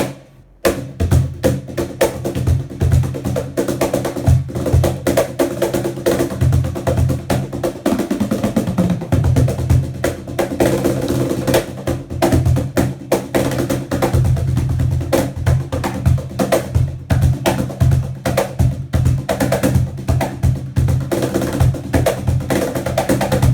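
A Koning Percussion cajon played by hand in a fast, continuous groove of dense strokes, with steady pitched musical tones sounding underneath. The playing stops suddenly at the end.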